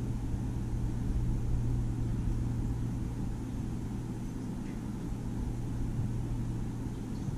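A steady low hum over a faint rumbling background noise.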